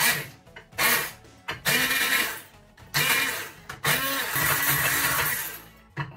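Hand-held stick blender puréeing raspberries in a bowl, run in about five short bursts: the motor winds up and down each time, and the last burst is held longest, about two seconds. Background music plays underneath.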